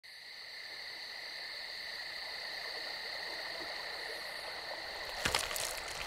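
Night ambience of a steady, high-pitched chorus of calling animals that fades in at the start and holds without a break. A few sharp clicks come near the end.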